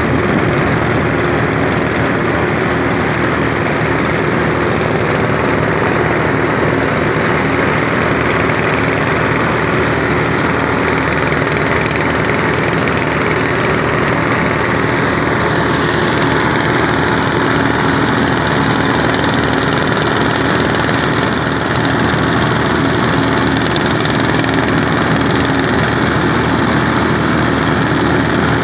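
Small engine of a rice threshing machine running steadily.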